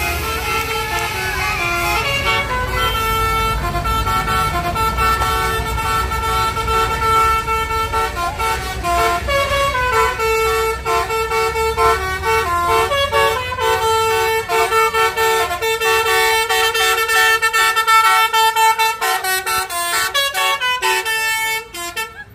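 Bus 'telolet' multi-tone air horn playing a tune of held notes that step up and down, breaking into rapid short toots near the end and cutting off suddenly.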